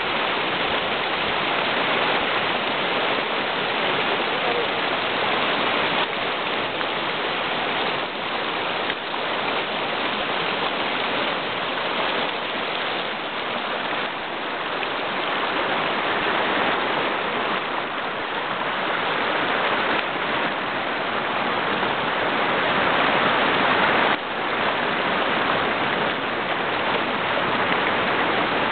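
River water rushing steadily over a shallow, rocky streambed: an even hiss with no breaks.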